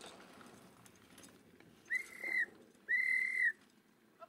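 Two short blasts on a whistle, the second slightly longer, each sliding up at the start and dipping at the end.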